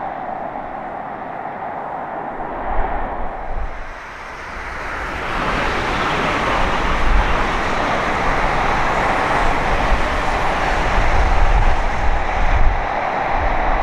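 ALFA-X E956 test Shinkansen train passing on the track: a steady rushing noise for the first few seconds, then, after about four seconds, a swelling rush of air and deep wheel-on-rail rumble that stays loud as the long train goes by.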